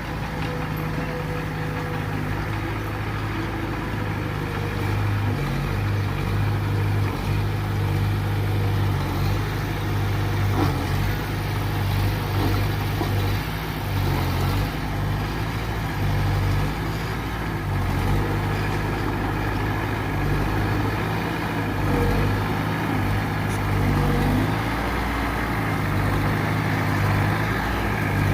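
Heavy diesel engine of earthmoving machinery running steadily, with a low hum that swells and dips slightly as it works.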